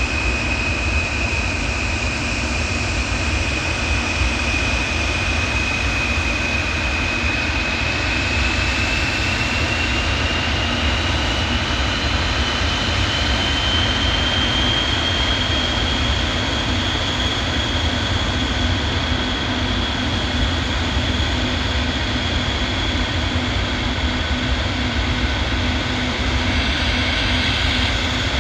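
Antonov aircraft's engines running loud, a steady rushing noise with a high whine on top that rises in pitch from about eight to fourteen seconds in and then holds.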